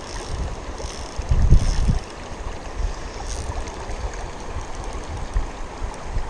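River water flowing and lapping over shallow stones, with wind buffeting the microphone in gusts, strongest about a second and a half in.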